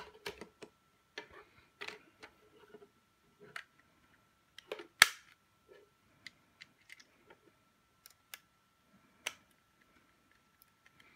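Scattered plastic clicks and taps as the Zipato power module's housing is refitted over its circuit board, with one sharp, loud snap about five seconds in as the cover goes on. A faint steady high tone runs underneath.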